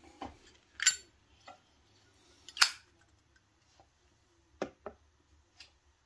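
Zippo-style windproof lighter's hinged metal lid flipping open and snapping shut, giving sharp metallic clacks with a brief ring. Two loud ones come about a second in and at about 2.6 s, with fainter clicks between and a quick double click near the end. The typical Zippo clink comes from the small cam spring that holds the lid open and closed.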